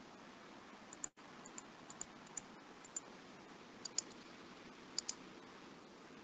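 About a dozen light clicks from a computer mouse and keyboard, several in quick pairs, over faint room hiss picked up by a meeting microphone; the audio drops out for an instant about a second in.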